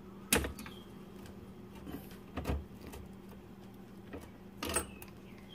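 Screwdriver clicking and scraping against the metal bottom plate and wiring box of a garbage disposal: three sharp clicks about two seconds apart, over a faint steady hum.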